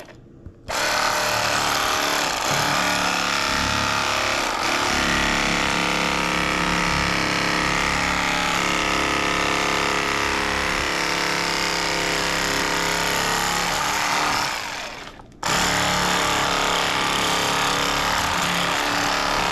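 KastKing Speed Demon electric fillet knife running, its twin reciprocating blades sawing along a catfish's rib cage, which is hard going. It switches on just under a second in, cuts out briefly about fifteen seconds in, then runs again.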